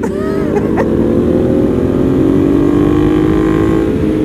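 Ducati V-twin motorcycles accelerating on the road, engine note rising in pitch for about two seconds and then holding steady, with wind noise on the microphone.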